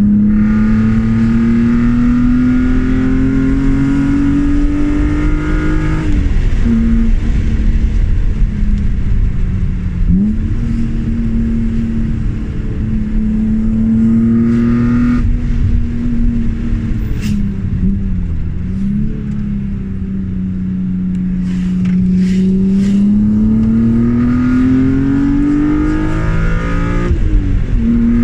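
BMW E36 M3's straight-six engine pulling through the gears on a drive: its note climbs slowly, drops sharply at a gear change about six seconds in, holds and dips a couple of times mid-way, then climbs again to another gear change near the end.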